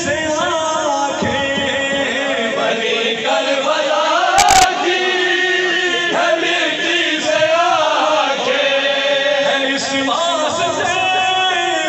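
A man chanting an Urdu devotional recital into a microphone in long, gliding held lines, with a group of men's voices chanting along. A brief sharp knock cuts in about four and a half seconds in.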